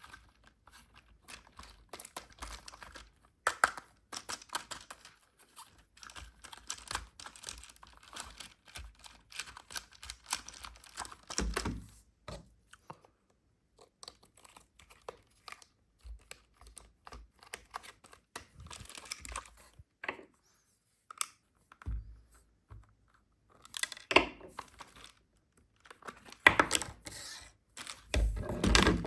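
Toy packaging being handled and opened: plastic and paper crinkling and tearing, mixed with small plastic clicks and knocks, in irregular bursts with short pauses.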